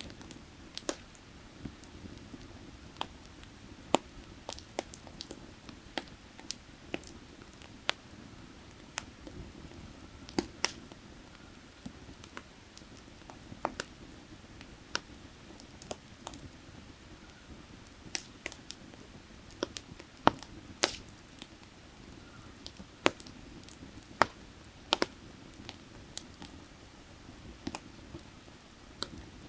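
Firewood burning, crackling with irregular sharp pops a few times a second, over a steady low rush of creek water.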